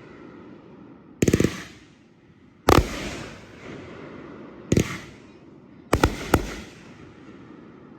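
Happy Family Fireworks 'The Atomic', a 500-gram consumer cake, firing shells that burst in the air. There are five sharp bangs, the first a quick rattle of cracks and the last two close together, each trailing off in a fading hiss.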